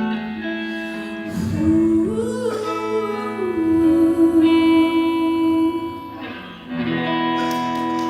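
Live performance of a slow ballad's closing bars, acoustic guitar with sustained chords ringing out; a fresh chord comes in about two-thirds of the way through.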